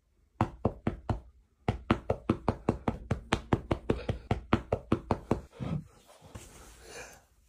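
A rapid run of sharp knocks, about five a second at their fastest, that fades out about two thirds of the way through.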